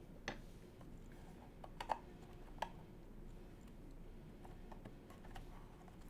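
Scattered light clicks and taps from handling a Keywalker68 mechanical keyboard while probing its case for a hidden screw, the sharpest a quick double click about two seconds in, with fainter ticks later.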